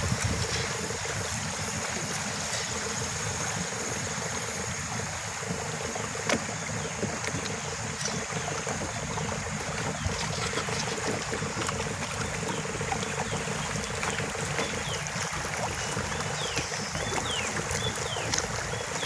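Steady rush of swift river water, with a faint even hum under it and a few short falling chirps near the end.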